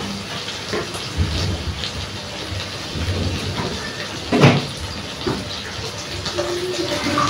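Broth being stirred and ladled in a metal steamboat pot: liquid sloshing, with scattered clinks of the metal ladle and one loud clank against the pot about four and a half seconds in.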